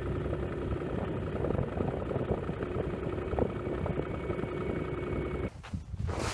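Vehicle engine running steadily with a low drone, cutting off suddenly about five and a half seconds in.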